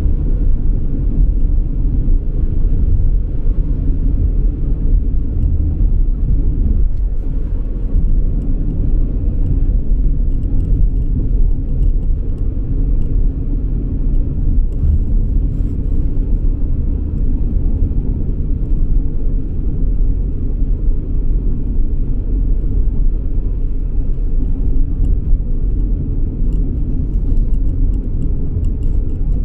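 A car driving along, giving a steady low rumble of engine and road noise with no change in pace.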